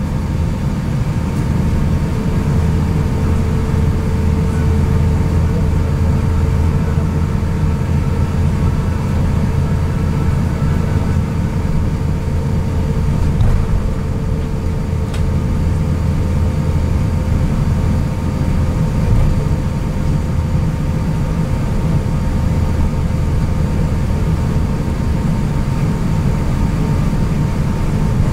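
Cabin noise inside an Airbus A350-900 taxiing after landing: a steady low rumble, with a faint steady whine on top.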